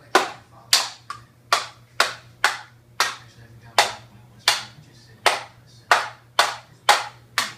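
About fourteen sharp, loud strikes at an uneven pace of roughly two a second, each ringing briefly, over a faint steady low hum.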